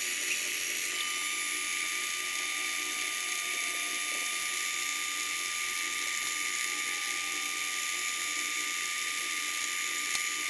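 Steady, high-pitched whir of a machine-shop power tool running continuously, holding an even pitch and level throughout.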